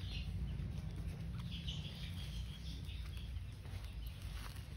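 A few faint, high animal calls over a steady low rumble.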